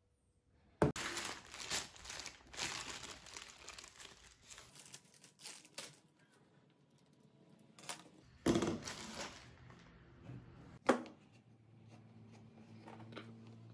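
Plastic packaging crinkling and rustling as bicycle spokes are taken out of their bag and handled, in irregular bursts, with a sharp knock of a part set down late on.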